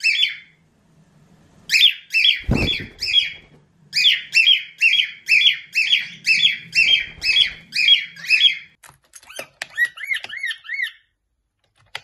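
Two cockatiels calling loudly: runs of short, high-pitched, repeated calls at about three a second. There is a thump about two and a half seconds in, and after about nine seconds the calls turn softer and lower, each one arching up and down.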